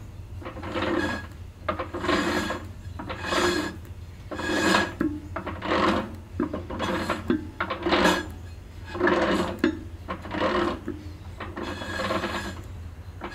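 Brake shoes dragging lightly inside the brake drum of a 1964 Ford 4000 tractor as the drum is spun by hand: a scratchy, draggy rasp that swells about once a second with each push. The slight drag is the sign of shoes adjusted just right.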